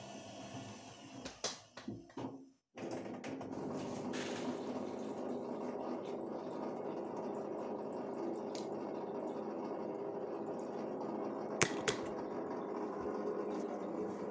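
Electrolux TimeSaver top-loading washing machine running a wash cycle: a steady churning water noise. The noise cuts out completely for a moment nearly three seconds in, then runs on evenly, with two sharp clicks close together near the end.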